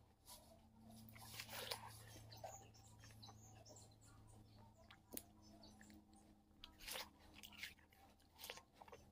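Frozen watermelon being bitten, broken and chewed close to the microphone: icy crunching in short clusters, loudest about a second and a half in and again around seven seconds. A steady low hum sits underneath.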